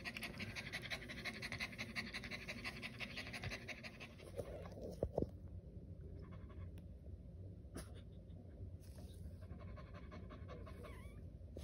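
French bulldog in labor panting rapidly and heavily, the panting dropping to softer, intermittent bouts about five seconds in, with a couple of brief knocks around that point.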